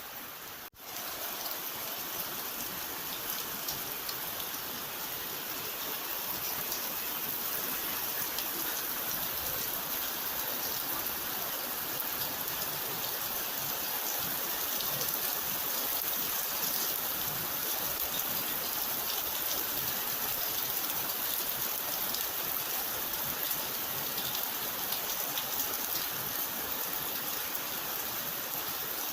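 Steady rainfall, a dense even hiss of drops. It briefly cuts out under a second in, then resumes.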